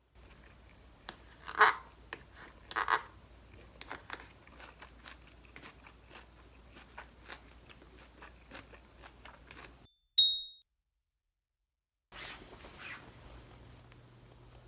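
Two loud crunches, then a run of small clicks and taps. About ten seconds in there is a brief high ring that fades quickly, then softer rustling.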